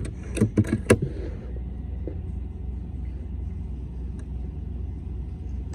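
Steady low rumble, with four sharp clicks in quick succession about half a second in.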